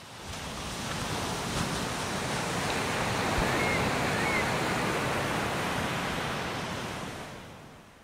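Ocean surf: a wash of waves that swells up over the first few seconds and fades away near the end, with two faint short chirps in the middle.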